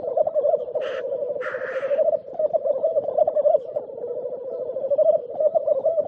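Male black grouse at the lek giving the continuous bubbling, dove-like rookooing display song, with two short hissing 'tchu-whee' calls about one and one-and-a-half seconds in.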